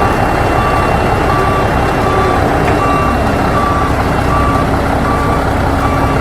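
Truck reversing alarm beeping steadily, about three beeps every two seconds, over a loud engine rumble.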